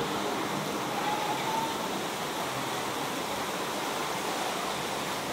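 Floodwater rushing steadily along a street as a fast, turbulent torrent, a continuous even rushing noise.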